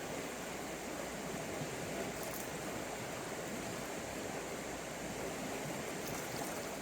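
Steady rushing of a river's current flowing past.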